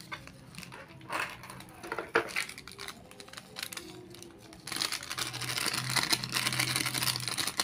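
Plastic Royco seasoning sachet crinkling as it is shaken and squeezed to sprinkle powder over a raw fish, with hands rubbing the seasoning in. Scattered crackles at first, becoming a denser, louder crinkling over the last few seconds.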